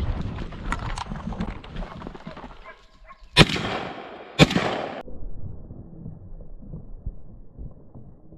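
Two gunshots from a boar-hunting gun, about a second apart, each cracking sharply and ringing on briefly. Before them there is a rough rustling noise.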